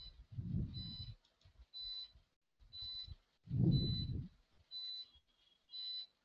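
A short high electronic beep repeating about once a second, with three louder low muffled thumps about three seconds apart.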